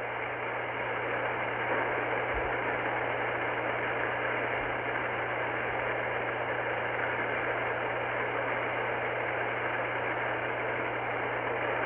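Steady hiss of band noise from an Icom IC-R30 receiver on 27.385 MHz lower sideband, with a low steady hum underneath: an open CB sideband channel between transmissions.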